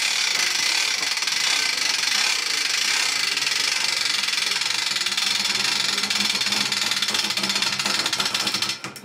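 A small motor running steadily under load, a dense mechanical whirr that stops shortly before the end. It is tensioning a natural-fibre rope on a load-testing rig as the load climbs toward failure.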